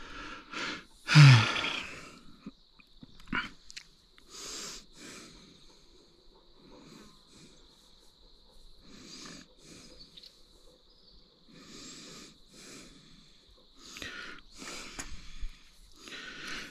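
A man's voiced sigh, falling in pitch, about a second in, then soft, wheezy breaths close to the microphone, with a faint steady high tone through most of it.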